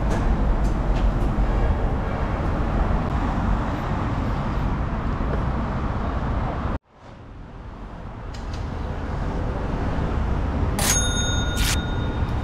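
City street ambience with steady traffic noise. It cuts out abruptly about seven seconds in and fades back up. Near the end a short bell-like ding sounds for under a second.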